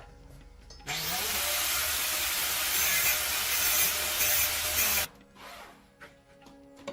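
A workshop power tool working a piece in one steady, harsh burst of about four seconds, starting about a second in and cutting off suddenly.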